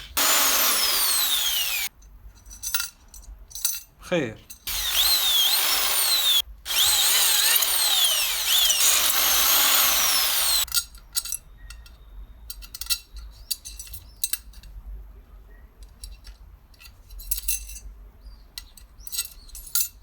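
Electric drill with a 4 mm stainless drill bit boring spoke holes in a moped's wheel rim, in three runs, the last about four seconds long, each with a squeal sliding down in pitch. After that only small clicks and knocks.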